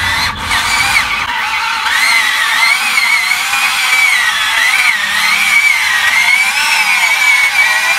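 Electric drive motors and gearboxes of a remote-control tracked toy vehicle whining under load as it crawls along towing a train of loaded toy trucks, the pitch of the whine wavering up and down.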